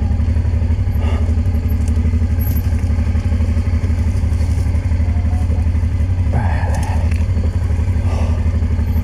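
Honda motorcycle engine running steadily at one even pitch during a slow off-road descent. A brief rush of noise comes in about six seconds in.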